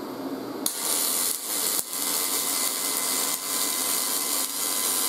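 MIG welding arc on aluminum from a YesWelder MIG-250 Pro wire-feed welder, striking about three-quarters of a second in and running as a steady, loud hiss with a few brief dips. The settings are dialed in, and the welder is pleased with the run.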